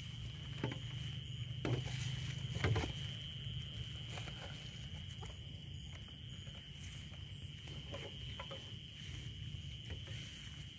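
Rustling and scattered footsteps in grass, over a steady high-pitched chirring of night insects.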